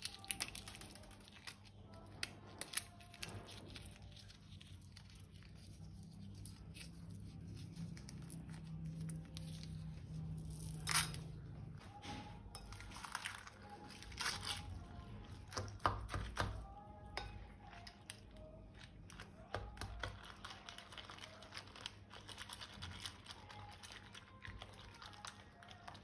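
Irregular crinkling, crackling and tearing from hands handling balloons and plastic piping bags filled with slime, with a couple of sharper snaps. Faint music may sit underneath.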